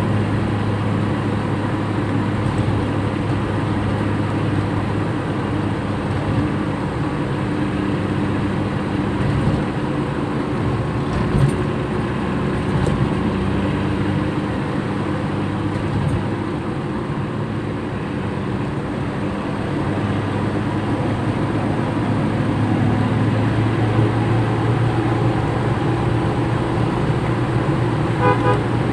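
Toyota Kijang on the move: engine and road noise make a steady low drone. A couple of short car-horn toots sound near the end.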